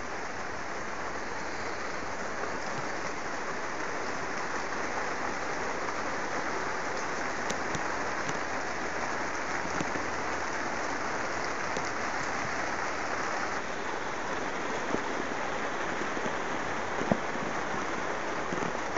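Steady rain falling on the plastic sheeting of a PVC-framed greenhouse, heard from inside as an even hiss, with a few separate small taps near the end.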